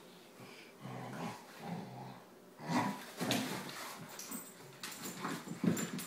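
A Labrador and a Chesapeake Bay retriever puppy play-fighting: low play-growls in the first half, then louder scuffling with sharp clicks of claws on a hardwood floor.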